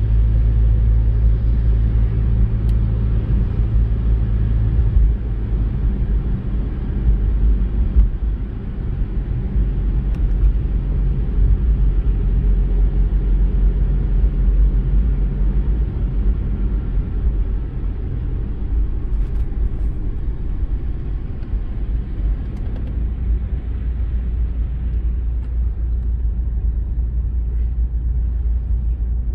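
Steady low rumble of a car driving, heard from inside the cabin: engine and tyre noise on wet asphalt.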